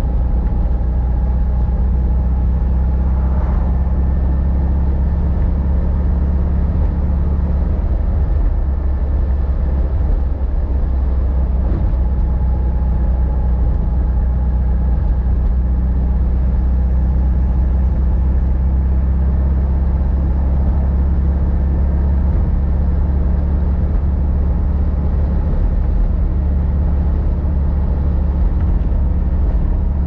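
1954 VW Beetle's 36 hp air-cooled flat-four engine running steadily while the car drives at an even pace, a constant low drone with road noise.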